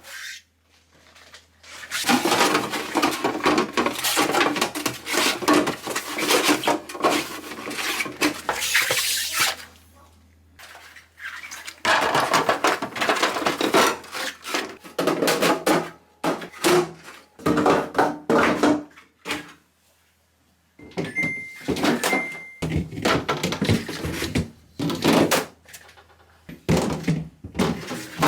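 Kitchen containers and objects clattering and knocking as they are handled during refrigerator and kitchen cleaning, in spells of busy rattling with quieter gaps. Two short electronic beeps sound about three quarters of the way in.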